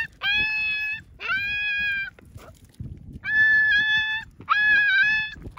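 A puppy crying in distress: four long, high-pitched cries, each held at a steady pitch for most of a second.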